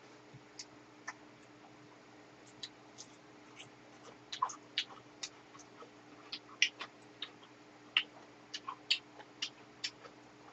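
Close-miked eating sounds: chewing with short, irregular clicks and smacks, a few a second, as butter-grilled shrimp is eaten.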